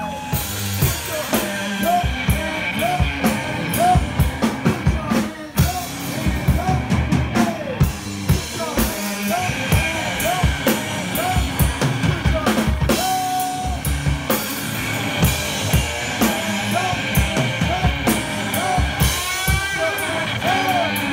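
Live band music carried by a drum kit playing a busy, steady beat, with short pitched notes over it.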